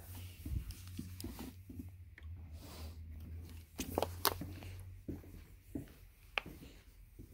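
Footsteps and handheld phone handling noise while walking: a string of irregular sharp clicks and knocks, the loudest about four seconds in, over a low steady hum.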